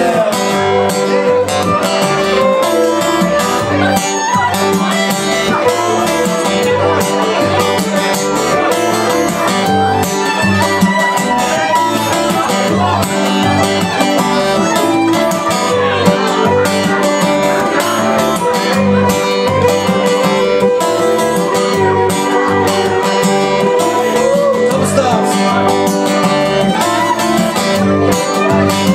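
Live acoustic band playing: strummed acoustic guitars keep a steady rhythm while a fiddle plays a melody over them.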